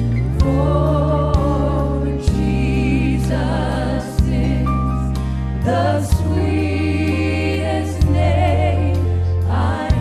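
Live gospel worship song: a woman singing lead with vibrato over backing singers. Sustained low bass notes change every second or two, with sharp hits every one to two seconds.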